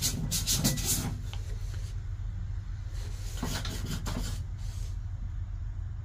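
A hand rubbing and wiping the dusty dashboard and gauge glass of an old GMC truck's cab. There are a few quick scrubbing strokes in the first second and another run of them a little before the fourth second.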